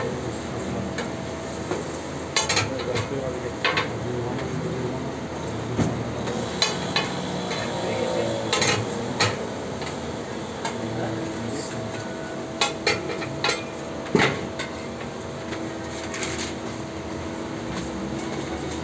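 Metal blade knocking and scraping on a flat-top toast griddle as filling is chopped and pushed about, irregular clanks and taps with a light sizzle, over a steady hum.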